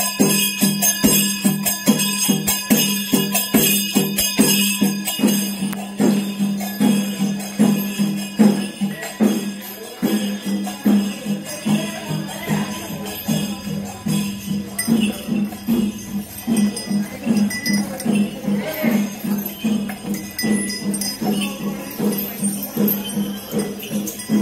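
Chenda melam, the Kerala temple percussion ensemble: chenda drums beaten in a steady, evenly repeating rhythm with ilathalam cymbals clashing over them. The sound dips briefly about ten seconds in, then carries on.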